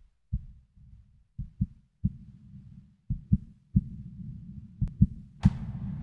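Low heartbeat thumps, several in close pairs, opening a song. About five and a half seconds in, the music comes in with a sharp hit that rings on.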